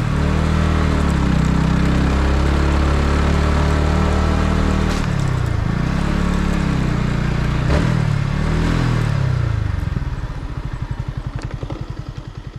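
Yamaha MT-15's single-cylinder engine running under way, its pitch falling and climbing again twice with a couple of sharp clicks, then dropping to a low, evenly pulsing idle about ten seconds in, fading near the end.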